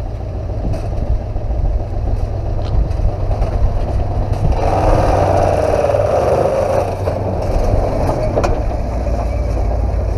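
Ford 4x4 pickup's 351 Windsor V8 working under load as the truck climbs out of a sandy wash and drives past, a steady low rumble that grows louder about halfway through and eases off somewhat near the end.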